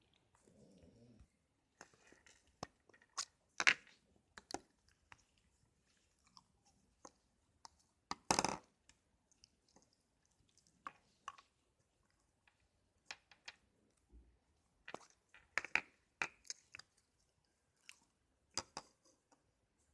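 Slime being squeezed and played with by hand, making irregular sticky pops and clicks; the loudest, a longer burst, comes about eight seconds in.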